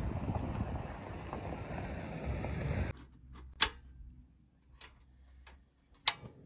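Steady wind noise for about three seconds, then sharp clicks from a portable gas camp stove's piezo igniter as its knob is turned: two loud clicks about two and a half seconds apart, with fainter knob clicks between.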